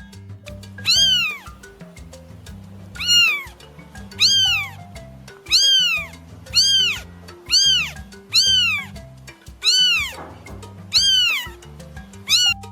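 Domestic cat meowing repeatedly, about ten meows roughly a second apart, each rising and then falling in pitch, over background music.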